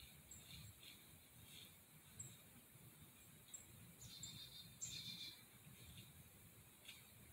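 Quiet woods, near silence, with faint, brief high chirps of small birds calling now and then; the clearest two come about four and five seconds in.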